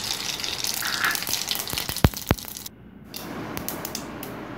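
Cumin and mustard seeds sizzling and crackling in hot oil in a steel pot, with scattered pops and two sharp clicks about two seconds in.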